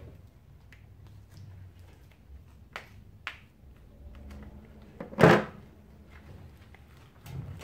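Handling noise from a muskrat being skinned by hand: a few light clicks, then one loud, short knock about five seconds in.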